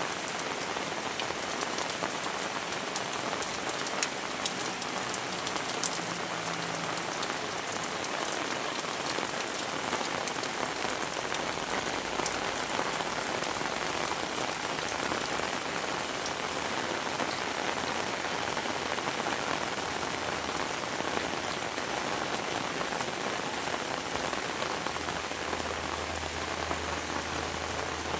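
Heavy rain falling steadily, a dense even patter with sharp ticks of individual drops striking close by. A faint low hum comes in near the end.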